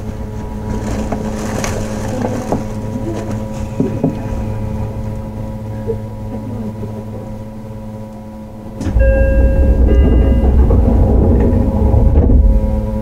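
Cabin running sound of a Shin-Keisei 8900 series electric train with its Mitsubishi IGBT inverter. Steady low hums sound under a running noise that slowly fades. About nine seconds in, a sudden louder low rumble starts, with a few steady high tones for a moment.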